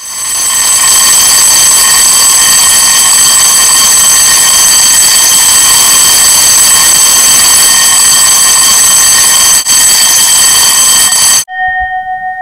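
National 6-inch electric gong bell ringing continuously and very loud, its hammer rapidly striking the metal dome, measured at about 124 decibels. After about eleven seconds it is switched off and stops abruptly, and the dome rings on, fading with a pulsing wobble.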